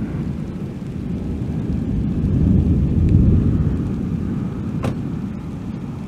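Thunder rolling from a severe thunderstorm: a deep, low rumble that swells to a peak about halfway through and then fades, with a brief click near the end.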